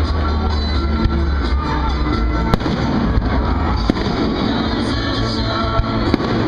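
Fireworks going off over loud music: several sharp bangs, the loudest about two and a half seconds in, with others near four and six seconds.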